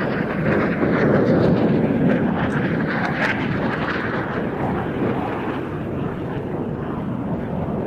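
Aero L-159A Alca combat jet's turbofan engine as it flies past: a loud rushing jet roar that peaks about one to two seconds in, then fades slowly.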